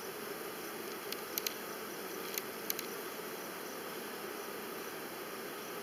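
Honeybees buzzing steadily around an opened hive, with a few light clicks between about one and three seconds in.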